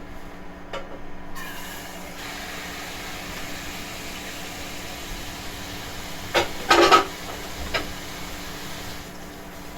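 A steady hiss over a low, even hum, with a short clatter of knocks about two-thirds of the way through.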